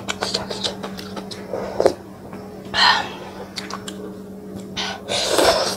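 Close-up eating sounds of spicy noodle soup: two loud slurps of noodles and broth, about three seconds in and again near the end, with small clicks of chopsticks and a spoon against a glass bowl over a steady low hum.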